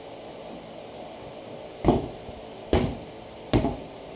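Three heavy thumps, a little under a second apart, from a man stepping down hard on a tractor tire's sidewall to break its bead.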